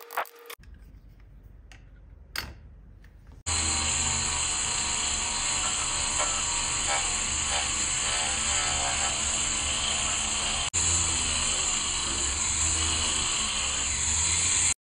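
Corded rotary-tool handpiece running a small polishing wheel against a brass lighter case: a steady high-pitched whine over a low hum, starting about three and a half seconds in, with a brief break about eleven seconds in.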